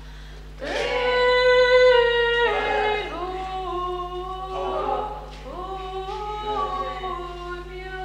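Unaccompanied singing in slow, long-held notes, starting about half a second in and stepping to a new pitch every second or two, over a steady low electrical hum.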